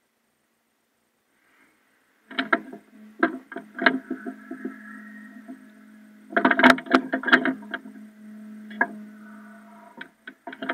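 Caterpillar 432E backhoe loader working: a steady machine hum with clusters of sharp metallic clanks and knocks, starting about two seconds in.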